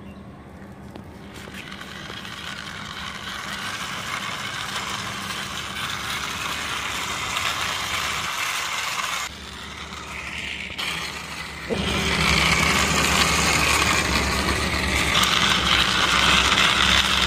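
Plastic wheels of a small toy police car pushed by hand along a rough concrete wall top, giving a continuous gritty rolling rattle that grows louder, with abrupt jumps in level about nine and twelve seconds in.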